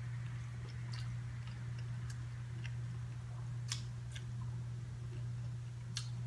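Sparse small clicks and taps from handling shellfish and eating, scattered over a steady low electrical hum.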